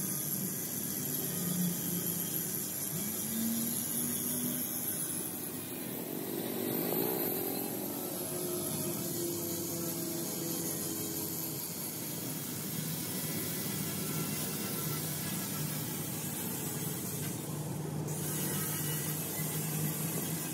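Steady mechanical drone of a running motor, with a continuous hiss over a low hum.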